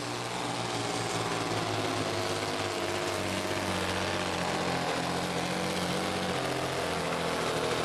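Diesel engine of a Volvo FH pulling truck running flat out under full load as it drags a weight-transfer sled, a steady drone with no break.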